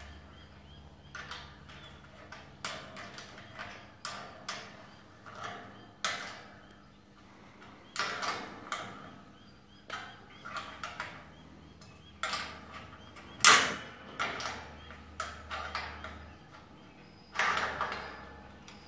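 Irregular sharp metallic clanks and clicks, some briefly ringing, as a steel sliding-door stop is fitted and tightened in its track; the loudest clank comes about two-thirds of the way through.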